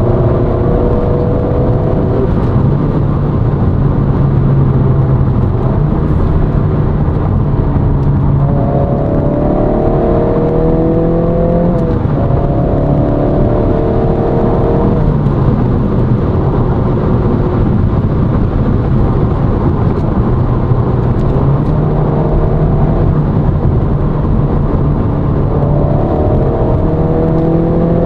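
Honda Civic Si's turbocharged 1.5-litre four-cylinder, fitted with a PRL high-volume intake, being driven hard: the engine note climbs in pitch, drops at a shift and climbs again. This happens twice in a row about a third of the way in and once more near the end, with steadier running between.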